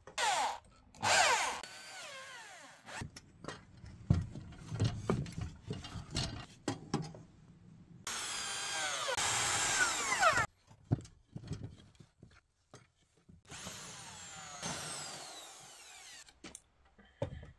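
Power drill driving screws to fix wooden planks to a metal frame, in about four runs. The pitch drops during each run, and the longest comes about halfway through. Short knocks of the boards being handled fall in between.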